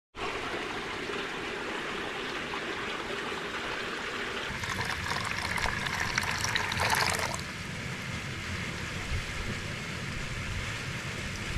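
Water rushing steadily along a mountain irrigation canal, louder and choppier for a couple of seconds about halfway through.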